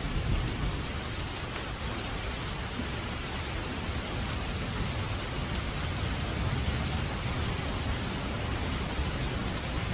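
Steady rain falling, an even hiss of drops on a surface, with a low rumble underneath that is strongest about a second in.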